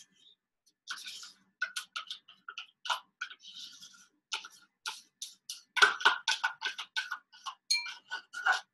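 A spoon scraping and tapping coconut yogurt out of a plastic tub into a bowl: a run of irregular light clicks and knocks, several a second, busiest from about six seconds in.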